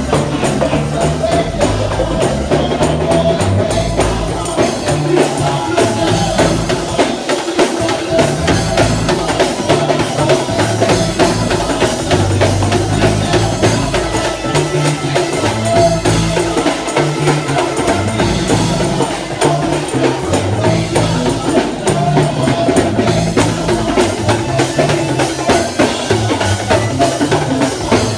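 Live gospel praise-break music: an organ played over a drum kit, with fast, driving percussion that keeps up a steady loud beat.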